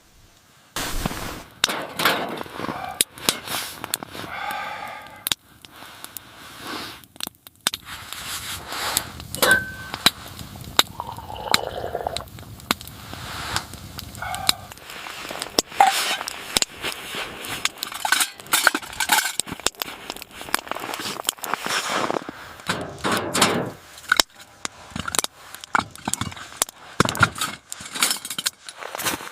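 Objects being handled: a long run of irregular sharp clicks, knocks and clinks, a few of them ringing briefly.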